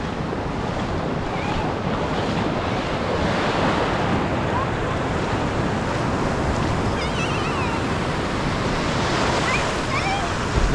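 Ocean surf breaking steadily on a beach, with wind buffeting the microphone.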